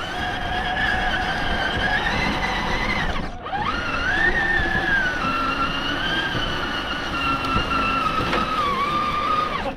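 Electric motor and gear drivetrain of an RC rock crawler whining under throttle, its pitch wavering with the load. It cuts out briefly about a third of the way through, then spins back up.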